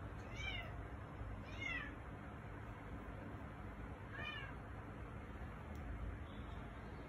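Domestic cat meowing three times, short calls that rise and fall in pitch.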